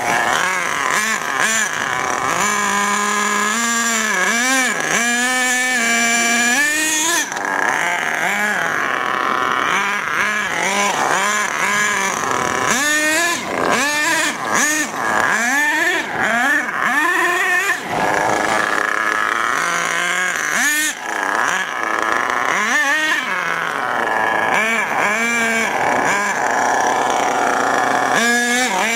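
HPI Savage nitro RC monster truck's small 3.5 cc glow engine revving up and down over and over as the throttle is blipped, its pitch climbing and falling in quick arcs with some longer stretches held high at full throttle. The engine is tuned slightly rich on the high-speed needle.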